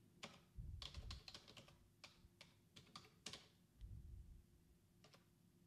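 Faint typing on a computer keyboard: a quick run of key clicks as a terminal command is entered, then a single key press near the end.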